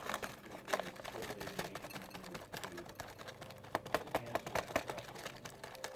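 A torn paper packet of instant oatmeal being emptied into a bowl: irregular light clicks and rustling.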